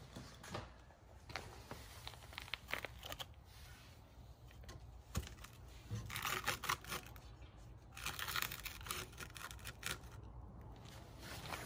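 Fine copper wire scrap being pressed and stuffed by hand into a crucible. It crinkles and scratches, with scattered small clicks at first and louder crinkly rustling about six and eight seconds in.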